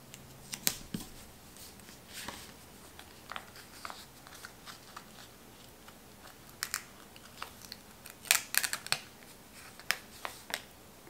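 Light, scattered clicks and paper rustles of stickers being peeled from a sticker sheet with metal tweezers, with a small cluster of sharper clicks a little past the middle.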